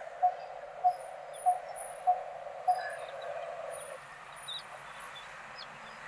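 Coppersmith barbet calling: a run of short, evenly spaced notes at one pitch, about one every 0.6 seconds, five in all, stopping about three seconds in. Faint high chirps sound in the background.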